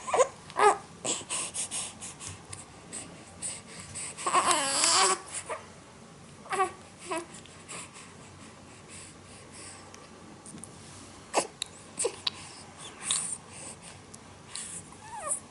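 Short whimpering cries, one longer rising-and-falling cry about four seconds in, and a few brief sharp sneezes about eleven to thirteen seconds in.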